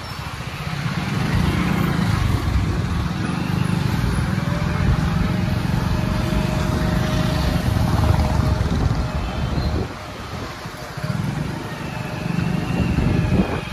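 Road traffic: motor vehicle engine noise with a steady low rumble, easing briefly about ten seconds in and then picking up again.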